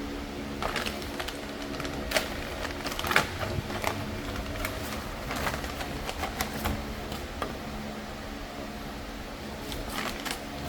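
Scattered metallic clicks and knocks of car suspension parts and tools being handled, over a steady machinery hum; the sharpest knocks come a little after two seconds and about three seconds in.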